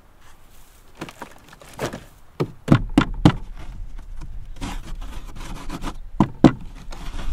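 Sharp knocks on the stiff, dried hide of a cow carcass: three quick ones about two and a half seconds in, then two more near the end, over a low rumble.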